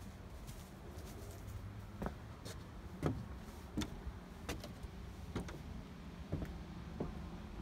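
Footsteps on wooden stairs and deck boards: separate knocks about every half second to a second as someone climbs the steps and walks across the deck, over a low steady rumble.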